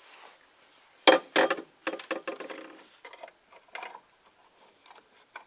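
Hands working a loosened oil filter canister free in an engine bay: two sharp knocks about a second in, then scattered clicks and short scraping rattles.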